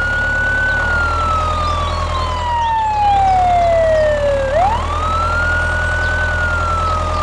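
Emergency-vehicle siren wailing: its pitch climbs over about a second and a half, then falls slowly for about four seconds before climbing again. A steady low rumble runs underneath.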